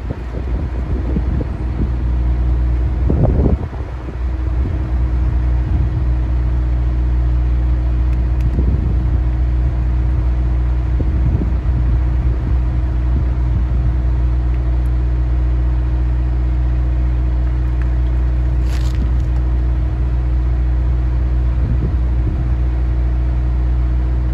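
Steady low engine hum that holds one pitch throughout, with a brief clunk about three seconds in.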